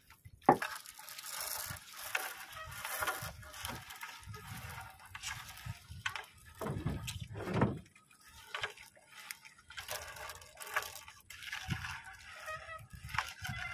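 Irregular knocks and water splashing as a fishing net and its catch are hauled into a small boat, with a sharp knock about half a second in.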